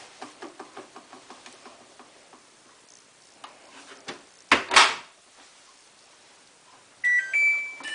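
Soft rustling of a sleeping bag being handled, then the door of a Samsung WF8804RPA washing machine shut with a loud knock about halfway through. Near the end the control panel beeps a few times as the programme is selected.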